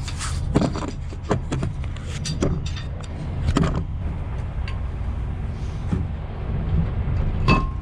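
Scattered metal knocks and scrapes from hand work on the concrete pump's wear parts, with a sharp ringing metallic clink near the end, over a steady low rumble.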